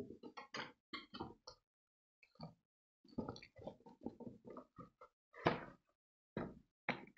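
Cardboard box and packaging being handled on a table: a string of short knocks, taps and rustles, the loudest a little past halfway.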